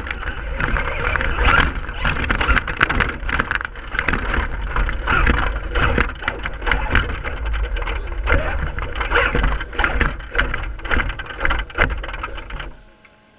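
Traxxas Stampede RC truck driving over grass and sidewalk, heard from a GoPro mounted on its front: a loud rumble with wind on the microphone and many rattles and knocks as the truck bounces. The noise drops away shortly before the end as the truck stops.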